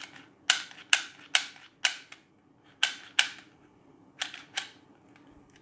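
Sharp plastic clicks from a Dremel 930 hot glue gun being worked in the hand: eight clicks, in four close pairs.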